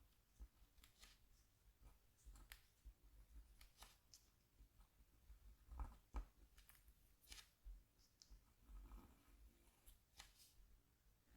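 Faint short scrapes of a stylus scratching a scratchboard, coming at irregular intervals with soft low bumps between them.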